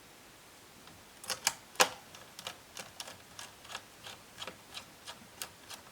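A run of sharp small clicks and taps, about three a second, from laptop parts being handled and fitted during reassembly; the first two are the loudest.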